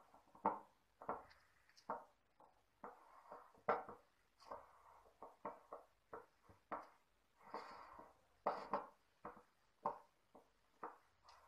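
Hands mashing and squishing a soft mixture of boiled mashed potato, chicken and cheese in a bowl: a run of irregular short squelching sounds, two or three a second.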